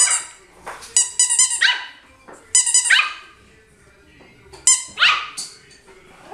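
A squeaky toy ball is squeezed in quick bursts of squeaks, and each burst is answered by a high-pitched yap from a Yorkshire terrier puppy, about four times over.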